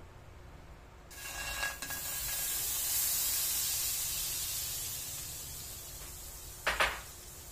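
A block of butter hits a hot aluminium wok and starts sizzling about a second in, with a few clinks of the spatula, then the sizzle slowly dies away as it melts. Near the end comes a short clatter against the wok.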